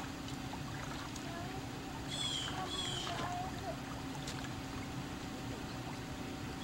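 Swimming-pool water lapping and sloshing softly around a child floating on their back in a life vest, over a steady hum. Two short, high, falling chirps sound close together a little over two seconds in.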